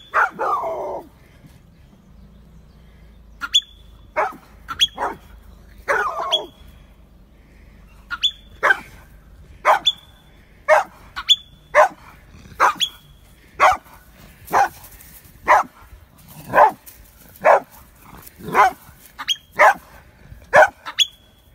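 Marmot giving sharp, repeated alarm calls at a dog, about one a second. Each call is a short high squeal that drops quickly in pitch. The calls begin a few seconds in and come steadily from about eight seconds on.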